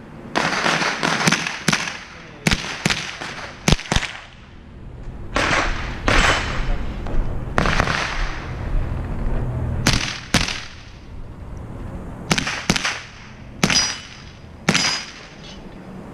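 Semi-automatic .22 rimfire rifle firing in quick strings of shots, each crack echoing off the range's concrete walls, with pauses of a few seconds between strings. Near the end, two shots are each followed by a short high ring.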